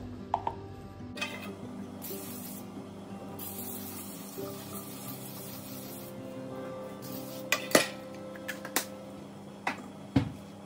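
Olive oil cooking spray hissing from an aerosol can into a round metal cake tin in short bursts during the first few seconds. Later come a few sharp metallic knocks and clinks as the tin and can are handled.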